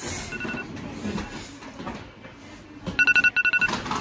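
Electronic alarm clock beeping in quick groups of four high beeps at wake-up time. One faint group comes near the start and two loud groups about three seconds in. In between is a rustling, clattering noise.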